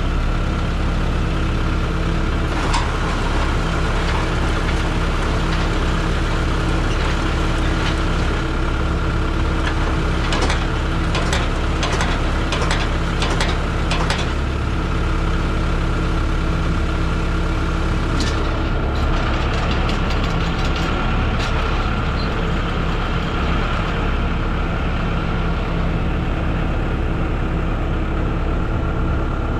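Engine idling steadily, with runs of sharp metallic clacks and knocks about ten to fourteen seconds in and again around eighteen to twenty-one seconds.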